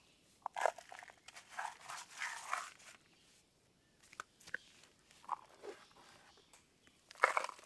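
Crunching and chewing in short, irregular bursts with quiet gaps between them, growing louder near the end.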